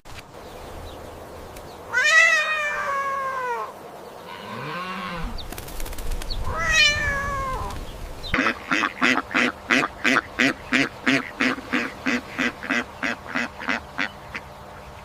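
Domestic cat meowing twice, each a falling call. This is followed by a quick run of about twenty short, repeated animal calls, some three or four a second.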